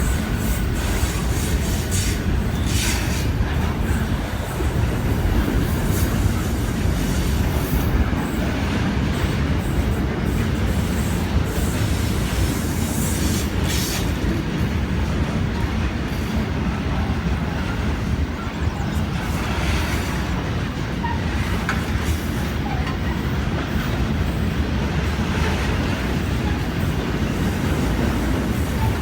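A train running along the track, a steady heavy rumble with wheels clicking over rail joints now and then.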